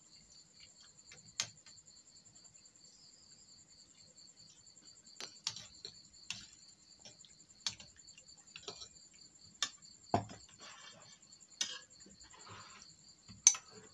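Spoons and a ladle clink against ceramic bowls and a metal pot every second or two, with a duller knock about ten seconds in. Under it runs the steady high chirping of night insects, likely crickets.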